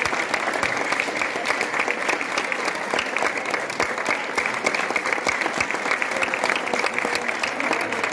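Hall audience applauding steadily: a dense, continuous patter of many hands clapping.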